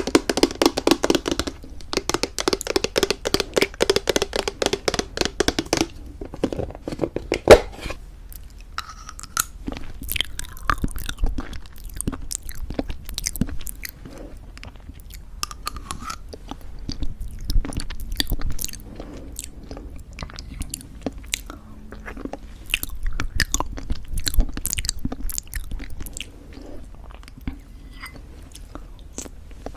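Close-miked chewing of crunchy homemade granola in thick yogurt. Dense crunching for about the first six seconds gives way to softer, sparser chewing with scattered crunches.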